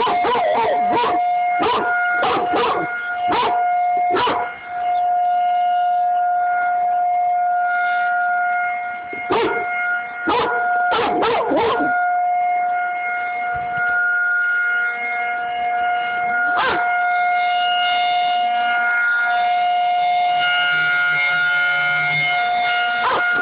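Outdoor tornado warning siren sounding one steady, unbroken tone, with an American bulldog howling along in short bursts, clustered in the first few seconds, again around the middle, and once more a little later.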